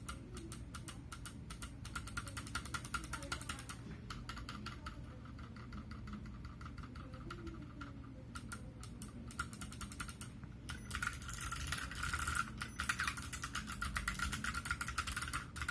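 Typing on a Tada68 mechanical keyboard with clicky Kailh Box Pale Blue switches, PBT keycaps and a low-profile aluminum case: a quick run of sharp key clicks, sparser through the middle, then a fast dense burst of keystrokes that stops near the end.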